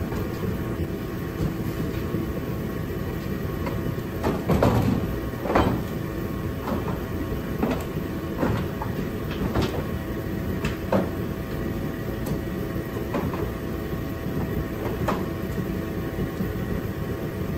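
Scattered knocks and clicks, roughly one a second with a louder cluster about five seconds in, from hands working parts on the Kawasaki KRX's freshly installed rear bumper and cargo rack, over a steady hum.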